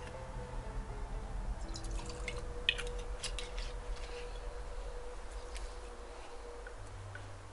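Liquid dripping and splashing from a plastic bottle into a glass, with a cluster of small sharp drips and clicks about two to three and a half seconds in.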